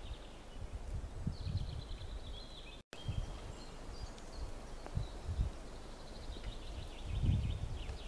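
Wind buffeting the microphone in uneven low gusts, with a small songbird in the trees faintly singing a rapid high trill twice, about a second in and again near the end.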